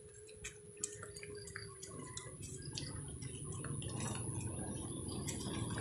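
Motorcycle-with-sidecar tricycle engine running and coming closer, a low pulsing rumble that grows steadily louder from about two seconds in. Scattered light clicks and ticks throughout.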